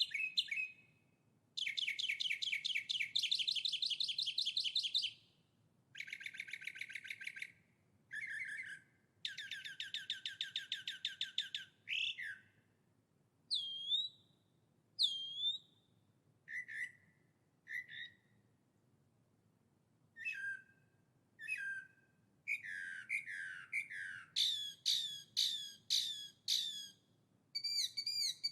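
Songbirds singing: bursts of rapid, high trills lasting a second or more each, then separate whistled notes with sharp downward swoops and, near the end, a quick run of short falling notes.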